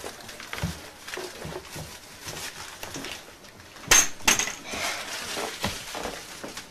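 Two sharp clinks of hard objects striking, less than half a second apart about four seconds in, with a short high ring, amid soft scattered knocks and rustling.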